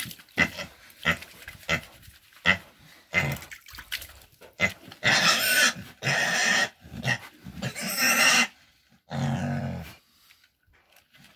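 A Vietnamese pot-bellied boar, tied on its back, grunting in short bursts about twice a second, then letting out four longer, shrill squeals from about halfway through: a restrained pig protesting at being handled.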